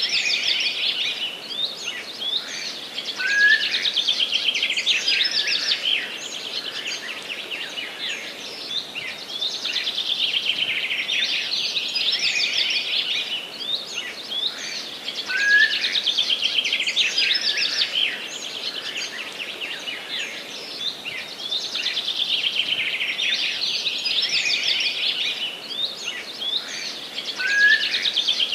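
A dense chorus of many small songbirds chirping and trilling without pause. A short, louder upward call stands out three times, about twelve seconds apart. A faint steady background hiss lies underneath.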